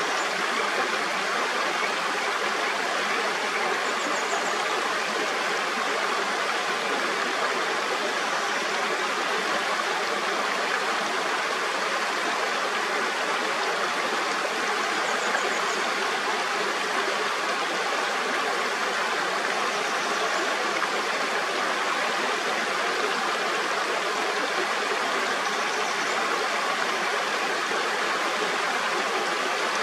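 Mountain stream flowing steadily over rocks, an even, unbroken rush of water, with faint high chirps every few seconds.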